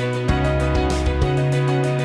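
Instrumental background music: held chords over a bass line that changes note every second or so, with a light steady beat.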